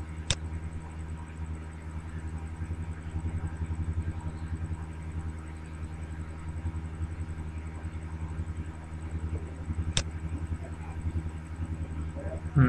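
Steady low hum, with a faint high tone and two sharp clicks, one just after the start and one about ten seconds in.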